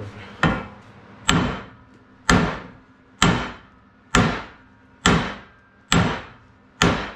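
Hammer blows on a rusted, seized arbor press, struck to drive a stuck part loose: eight sharp metallic strikes about one a second, each ringing out briefly.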